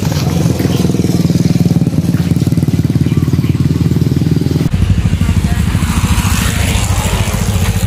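Small motorcycle engine running steadily with a fast, even low pulse; its sound changes abruptly about two-thirds of the way through.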